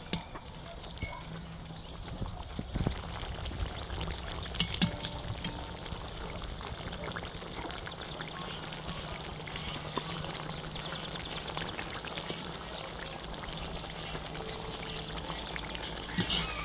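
Braising sauce bubbling and sloshing in a cast-iron pot as a metal ladle stirs it and lifts out the meat, with a few sharp clinks of metal on the pot, the loudest about three and five seconds in.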